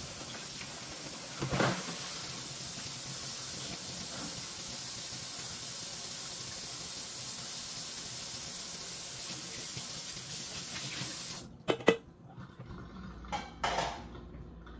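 Kitchen faucet running steadily into the sink, with a knock of dishware a second or so in. The water stops suddenly near the end, followed by a few sharp clanks of dishes.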